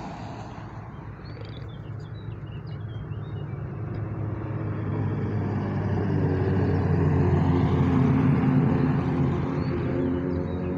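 Single-seater formula race car's engine passing at an even, unhurried pace on a hill-climb return run: it swells to its loudest about eight seconds in, then begins to fade. Faint high chirps sound about two seconds in.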